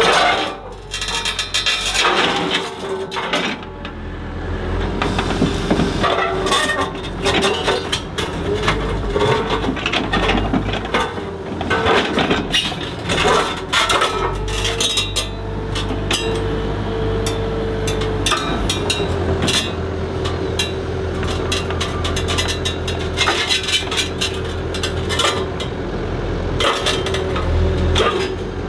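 Komatsu HB215LC excavator running with a steady hum and whine, while many sharp knocks and scrapes ring out as rocks clunk against each other and against the steel grapple while they are gripped and set down.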